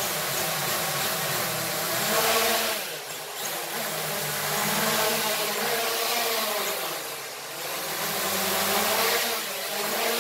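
Small toy quadcopter's electric motors and propellers whirring, the pitch rising and falling with the throttle. The whir dips briefly twice, about three seconds in and again about seven and a half seconds in.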